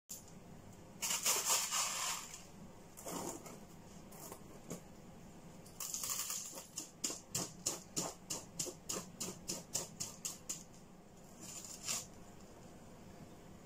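Fine gravel grit spooned onto the top of a small plastic plant pot, the grains rattling and pattering in short bursts, with a run of quick ticks, about four a second, in the middle.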